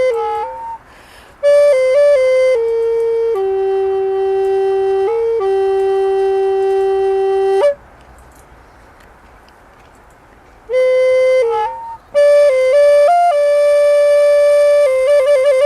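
Background music: a slow solo melody on a flute-like instrument. It plays long held notes, falls silent for about three seconds in the middle, then resumes, with a quick trill near the end.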